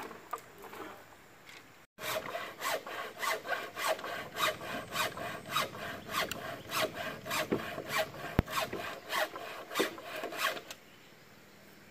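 A blade sawing back and forth through bamboo in quick, even strokes, about three a second, starting about two seconds in and stopping near the end. The blade is dull.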